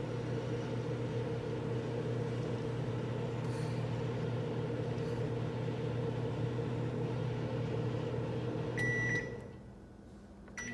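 Microwave oven running with a steady hum. Near the end it beeps and the hum winds down to a lull, then a second beep and it starts running again.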